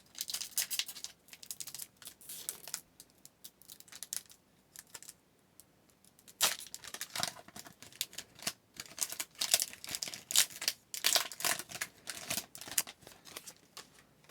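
A trading card pack being torn open, its wrapper crinkling and tearing in short, uneven bursts, with a quieter lull in the middle and a busier stretch of tearing near the end.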